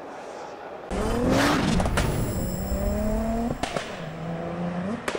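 Car engine revving, laid in as the sound of a title card. It starts suddenly about a second in with a rising rev, holds a steady note, then settles to a lower one near four seconds and picks up again at the end.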